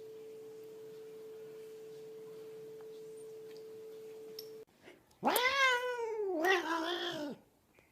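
A domestic cat giving one long, drawn-out meow about five seconds in, rising then falling in pitch over about two seconds. Before it, a faint steady hum that cuts off suddenly.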